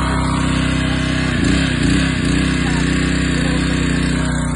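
An engine running steadily at a constant speed.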